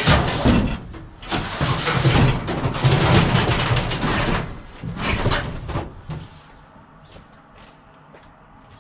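Washing machine being dragged and shoved, loud scraping and knocking in three stretches over about six seconds, then only a few light clicks.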